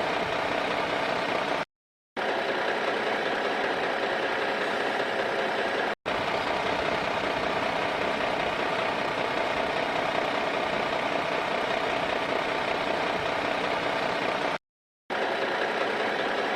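A steady, engine-like mechanical running sound with a constant hum, cut by three brief dead-silent gaps: once near two seconds in, a tiny one about six seconds in, and half a second near the end.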